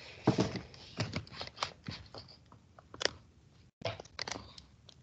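Irregular clicks, taps and knocks picked up over a video call's open microphones, the loudest about a third of a second in, with a brief cut-out of the audio a little before the end.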